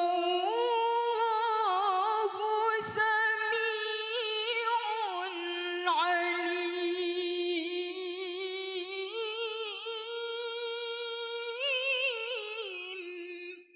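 A young woman reciting the Quran in the melodic tilawah style, drawing out a long phrase with many ornamental turns of pitch. A brief click comes about three seconds in, and the voice stops just before the end.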